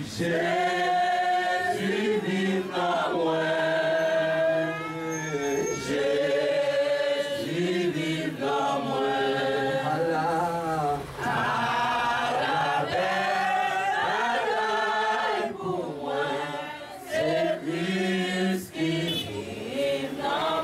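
Several voices singing together in a slow, chant-like hymn, holding long notes.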